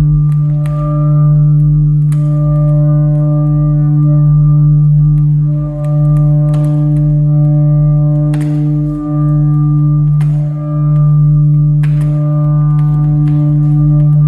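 Live ambient electronic music: a loud, steady low drone with several held higher tones layered above it. It dips briefly in level a few times, with faint clicks scattered over it.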